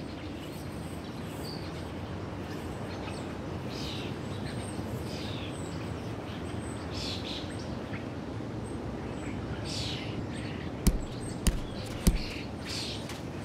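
Birds chirping sporadically over a steady outdoor background hiss. Near the end, three sharp taps about half a second apart, the loudest sounds here.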